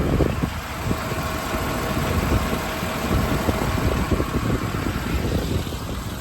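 Ford 6.7 Power Stroke diesel engine idling steadily, with irregular low thumps over it.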